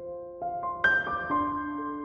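Background music: piano notes struck one after another and left ringing, the loudest a little under a second in.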